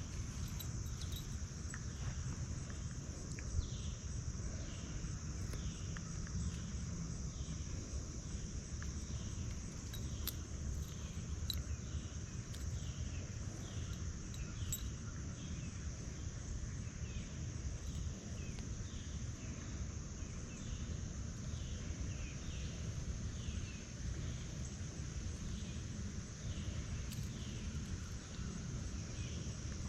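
Insects droning steadily and high-pitched, with a short falling chirp repeating about once a second, over a low steady rumble.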